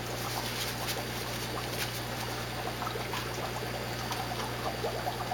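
Upflow algae scrubber running on an aquarium: air bubbles rising through it and water trickling and splashing back into the tank, with small pops scattered throughout over a steady low hum.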